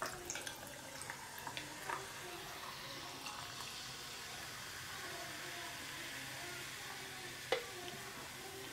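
Cherry Coke poured over ice in a tall glass: ice cubes crackle and clink at first, then the soda fizzes in a steady hiss. One sharp clink near the end.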